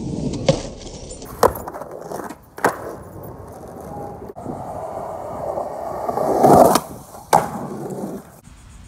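Skateboard wheels rolling over rough concrete and asphalt, broken by about five sharp clacks of the board hitting the ground. The rolling swells loudest about two-thirds of the way through, with a clack soon after.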